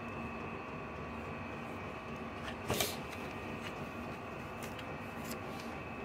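Chinese diesel air heater running with a steady fan hum, kind of noisy. A few faint clicks sound over the hum, and a single short knock comes a little under three seconds in.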